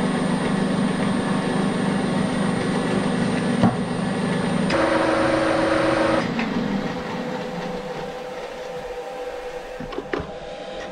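Bridgeport milling machine running with a drill in the spindle, a click just before four seconds in and a louder, rougher stretch just after. About six seconds in it is switched off at its stop button and the motor and spindle run down, leaving a quieter hum.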